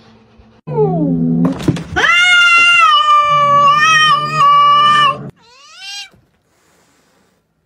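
A cat yowling: a short falling cry, then one long wavering yowl of about three seconds, then a brief rising-and-falling cry. The cat is angry, squaring off against another cat.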